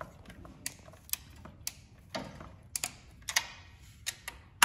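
Click-type torque wrench clicking in short, irregular strokes as intake manifold bolts are tightened to 88 inch-pounds.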